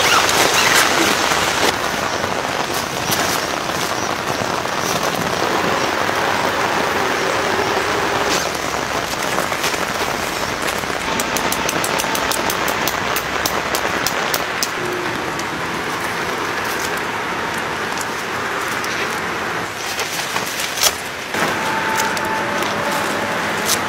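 Steady rain falling and pattering on surfaces, with scattered sharp taps and drips, and one louder knock near the end.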